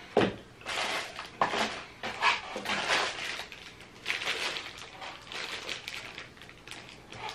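Crinkling and rustling of a plastic candy bag as it is taken out of a cardboard box and handled, with a sharp knock near the start.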